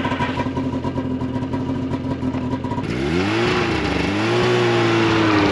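Snowmobile engine idling with a steady pulsing note. About three seconds in it gives way to a snowmobile accelerating, its pitch rising and then holding at higher revs, growing louder near the end.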